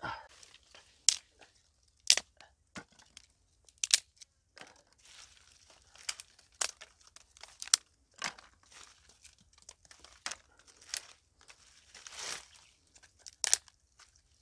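Dry sticks knocking and clattering as they are picked up and dropped crosswise onto bare ground: irregular sharp wooden clicks about once every second or less, with light rustling of twigs between.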